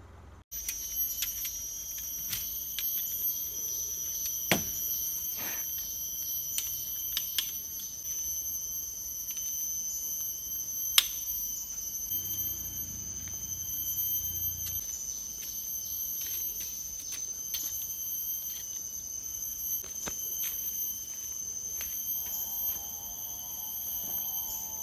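Cicadas droning steadily at a high pitch, with scattered clicks and knocks of gear being handled at a car's open boot; the sharpest is a single click about eleven seconds in.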